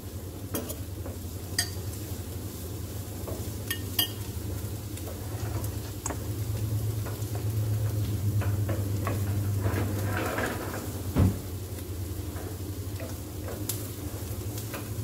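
Onion and garlic frying in oil in a frying pan, stirred with a wooden spatula that scrapes and taps the pan, over a steady low hum. Scattered sharp clicks of utensils, and one louder knock about eleven seconds in.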